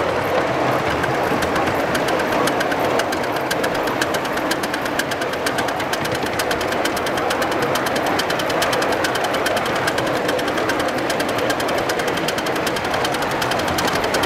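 Miniature live-steam locomotive running on an elevated ride-on track: a fast, even chuffing beat over the steady clatter of the train's wheels on the rails.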